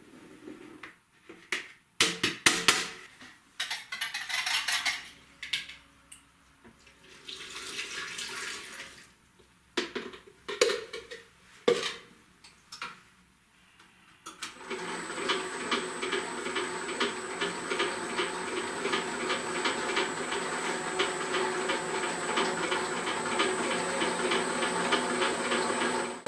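Knocks, clatter and pouring as ingredients are tipped from a plastic bowl into the stainless-steel bowl of a spiral dough mixer. About halfway through, the Famag Grilletta IM 5-S single-phase spiral mixer starts and runs steadily, an even motor hum with a high whine.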